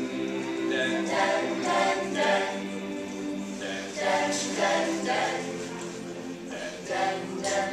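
A mixed-voice a cappella group singing the introduction of a song, voices alone holding chords with a steady pulse of sung syllables.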